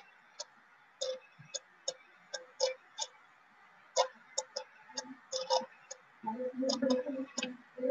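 A pen stylus clicking and tapping on a writing tablet during handwriting: short, sharp clicks at an uneven pace, two or three a second. A low hum comes in for about a second near the end.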